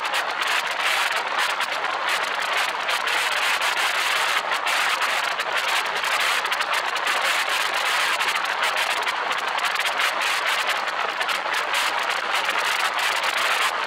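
Steady rushing wind and road noise on a roof-mounted camera of a car driving at road speed, with a rapid, irregular flutter.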